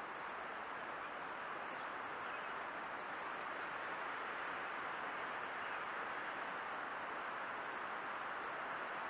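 Steady, even hiss of a trail camera's built-in microphone, with a thin, high-pitched electronic whine held throughout; the bear rolling in the grass makes no distinct sound.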